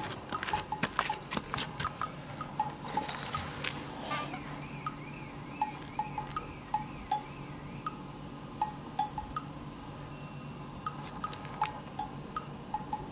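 Insects trilling steadily at a high pitch, stepping up in pitch about a second in, with faint short ticks scattered throughout.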